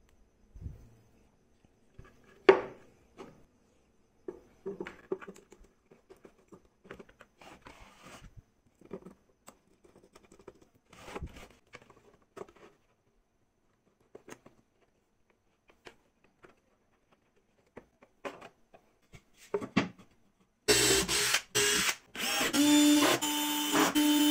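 Scattered light knocks and clicks of wooden and metal parts being handled and fitted on a workbench. About 21 seconds in, an electric drill starts boring into a plywood panel, running with a steady pitch and a few short stops, much louder than the handling before it.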